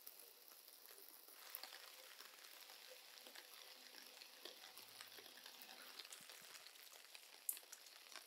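Light rain falling: a faint, steady hiss with scattered small drip ticks and one sharper drip near the end.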